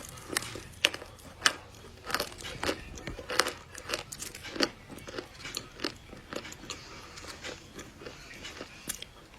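Close-up chewing of a crunchy chocolate dessert: a run of sharp, crackling crunches about every half second, growing softer in the later seconds.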